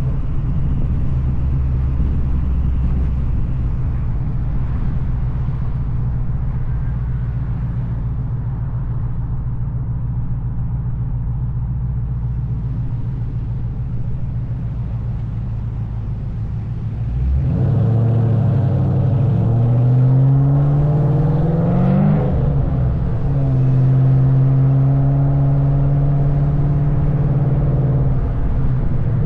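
2003 Mustang SVT Cobra's supercharged V8 through an SLP Loudmouth exhaust, running at a steady low rev, then revving up under acceleration about two-thirds of the way in. The pitch climbs, drops at a gear change, holds a steady higher note, and eases off near the end.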